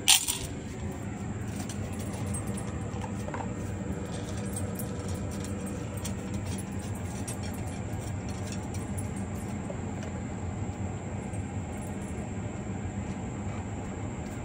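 Golden retriever eating from a stainless-steel bowl, with faint scattered clinks and crunches over a steady low hum. A sharp clatter comes right at the start.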